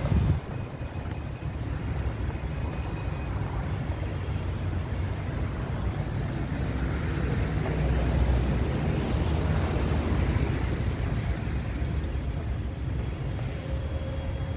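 Steady low rumble of outdoor city background noise, like distant traffic, with a brief louder bump right at the start.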